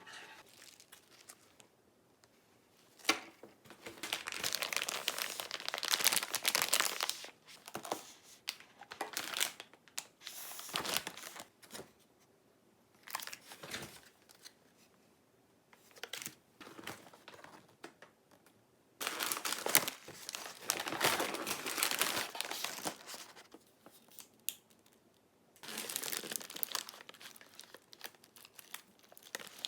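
Packaging being crinkled and torn open by hand, in several bouts of rustling with short pauses between them.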